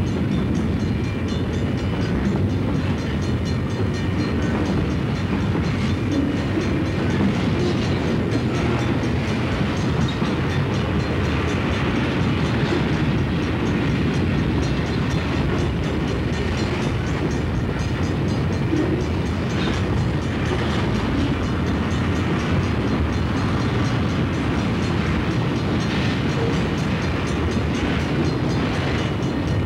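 Freight cars of a Southern Pacific train rolling past: a steady rumble and rattle of steel wheels on the rails, with a few sharper knocks along the way.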